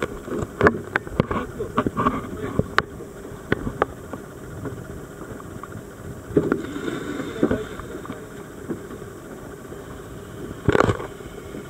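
Scuba gear knocking and clattering on the deck of a small dive boat as divers step off the side, with brief voices, then a loud splash near the end as a diver drops into the sea.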